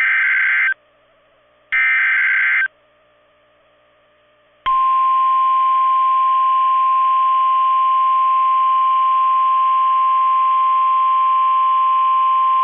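NOAA Weather Radio Emergency Alert System activation for a tornado warning. First come two short bursts of SAME digital header data, about a second each. About five seconds in, the steady single-pitch 1050 Hz warning alarm tone begins and runs for about nine seconds.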